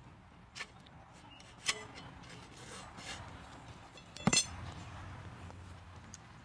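Metal clinks and clicks as rods are handled and fitted into the metal frame of an MX1802 slingshot, with a soft scrape of a rod sliding, and a louder double clink about four seconds in.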